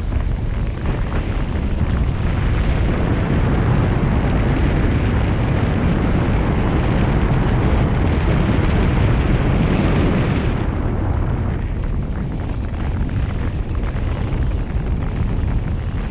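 Steady wind and road noise from a car driving along a paved road, picked up by a car-mounted GoPro 7: a dense low rumble with a hiss of tyres and wind over it. The higher hiss drops away about ten seconds in.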